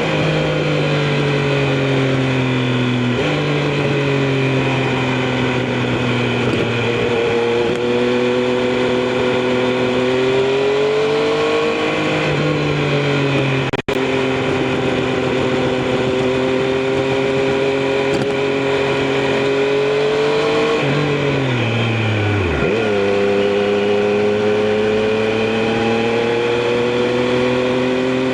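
Triumph Street Triple RS inline-three engine running under way. It holds a fairly steady pitch with a gear change about three seconds in and slow rises through the middle, cuts out for an instant about halfway, then falls steeply around twenty-one seconds before climbing again.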